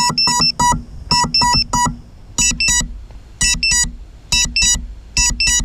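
An FPV drone's lost-model buzzer beeps in short rapid clusters, repeating about once a second, from a crashed quad lying in the undergrowth, a signal to help the pilot find it.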